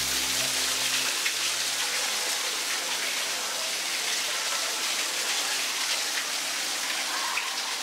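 Water splashing down a rock waterfall into a pond, a steady hiss of falling water. Pitched music fades out in about the first second and a half.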